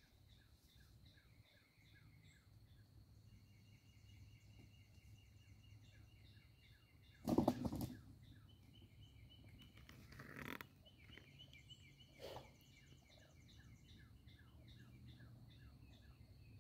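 Woodland birds and insects calling steadily: repeated high chirping trills and short falling chirps. About seven seconds in comes one sudden loud sound lasting under a second, followed by fainter ones around ten and twelve seconds in.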